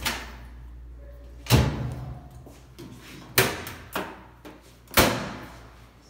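Top-loading washing machine lid and clothes dryer door being opened and shut, giving about five sharp knocks and bangs. The loudest come about one and a half seconds in and about five seconds in.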